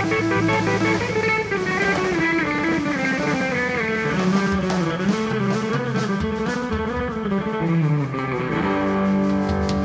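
Live blues-rock band: a Telecaster-style electric guitar plays a winding lead line over bass guitar and drums, with cymbals coming in about halfway. Near the end the band holds a sustained chord.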